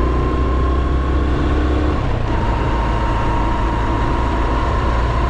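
Honda Super Cub 110's air-cooled single-cylinder engine running steadily while riding, under heavy low wind rumble on the microphone. The engine note shifts briefly about two seconds in.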